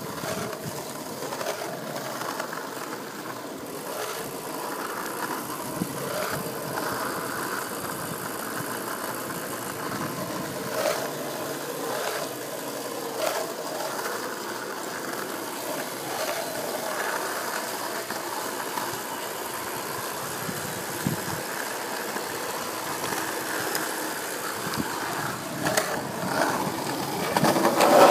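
Skateboard wheels rolling steadily over pavement, a continuous rumble with a few sharp clacks over joints or bumps. The rumble grows louder near the end.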